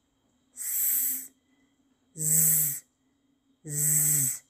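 A woman's voice demonstrating English consonants: one sustained voiceless /s/ hiss, then the voiced /z/ buzz held twice, each sound lasting well under a second with short gaps between.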